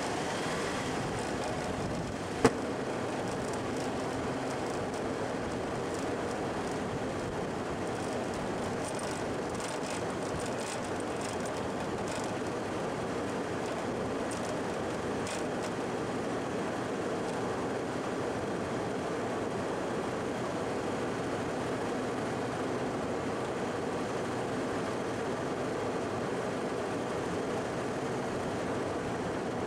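Steady running noise of a Toyota LandCruiser 100 Series driving along a soft sand track, picked up by a microphone on its bull bar. There is a single sharp click about two seconds in.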